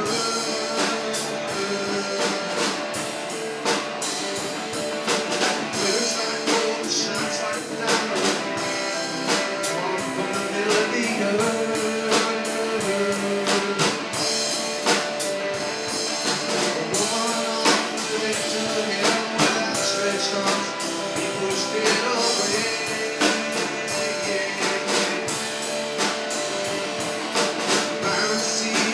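Live rock band playing an instrumental passage: electric guitars over a steady drum-kit beat.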